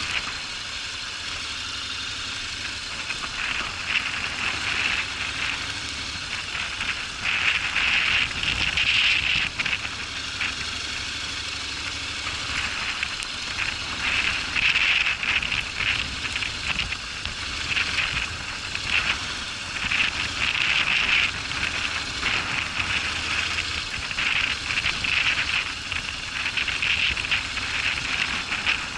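Honda NC750X motorcycle on a rough gravel track: crackling and rattling from the tyres and bike over loose stones, in uneven surges, over a low engine rumble.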